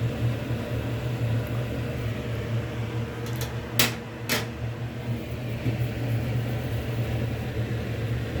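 Steady low mechanical hum throughout, with two sharp knocks about halfway through, half a second apart, the first one louder.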